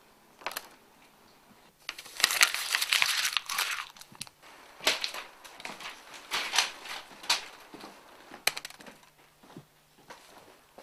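Paper photographs being ripped off a wall and crumpled by hand: a long crackling burst about two seconds in, then several shorter ones, and a couple of sharp clicks later on.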